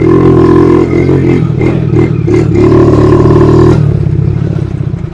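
Motorcycle engine running hard at high revs, loud and steady, then dropping off and fading about four seconds in.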